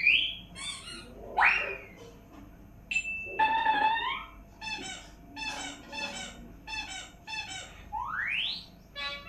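Playful electronic sound effects: quick rising swoops, a held tone about three seconds in, and a run of short chirping blips, with a second rising swoop near the end.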